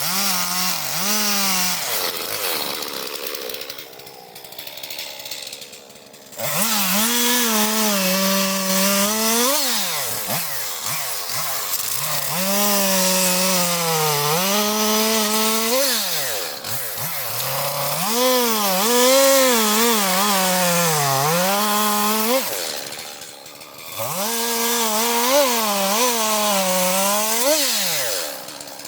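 Chainsaw cutting firewood logs, its engine note sagging and recovering again and again as the chain bites into the wood. It eases off twice, briefly near the start and again near the end.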